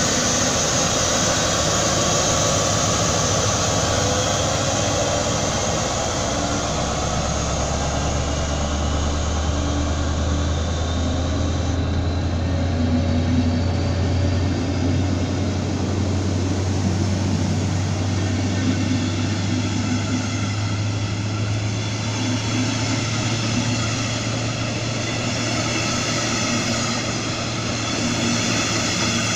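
Siemens ER20 diesel-electric locomotive (ER 20-013) hauling a train of passenger coaches past at close range: a loud, steady diesel drone, then the continuous rumble and clatter of the coaches' wheels on the rails as they roll by.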